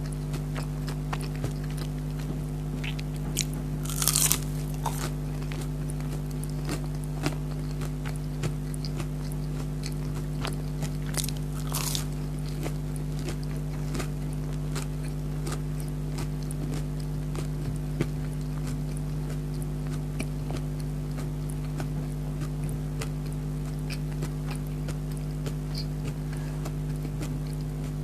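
Close-up chewing and biting of crunchy breaded chicken nuggets, a stream of small crunches with two louder bites about four and twelve seconds in, over a steady low hum.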